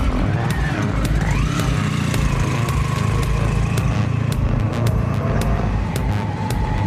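Motorcycle-and-sidecar outfit's engine pulling away, its pitch rising about a second in, then running steadily at speed.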